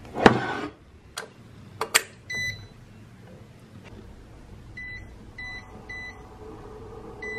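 A lidded frying pan clatters as it is pulled from a cupboard shelf, followed by two sharp clicks and a single beep. About five seconds in, an Imarflex IDX-1750T induction cooker gives three short beeps as its touch buttons are pressed, and a steady hum starts up as it begins heating.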